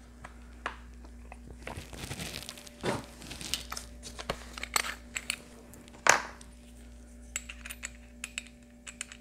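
Small handling noises from die-cast toy car parts: irregular light clicks and rustles, with one sharper click about six seconds in. No drill is running.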